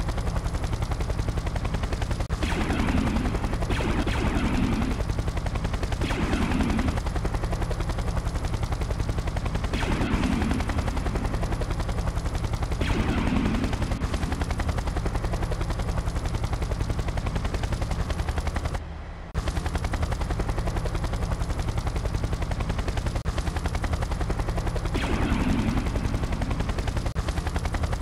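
Machine-gun fire sound effect, sustained rapid shots, with several louder blasts every few seconds and a brief cut-out about two-thirds of the way through.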